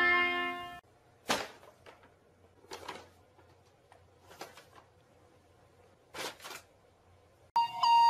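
Paper shopping bag rustling in four short, sharp bursts a second or two apart as a cat moves about inside it.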